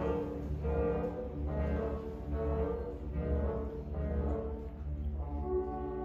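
Youth symphony orchestra playing: repeated swelling phrases over a strong low pulse, settling into a held chord about five seconds in.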